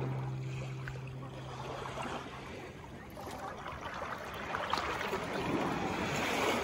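A held music note fades away over the first couple of seconds, then the wash of ocean surf rises and swells to its loudest near the end.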